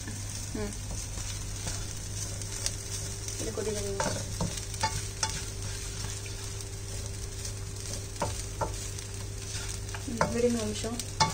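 Tamarind rice sizzling in a non-stick wok while a slotted spatula stirs and tosses it, with scattered clicks and scrapes of the spatula against the pan.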